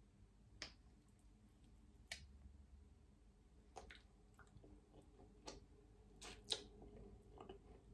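Near silence with a few faint clicks and mouth smacks from a person eating a spoonful of crunchy peanut butter off a metal spoon, two close together near the end.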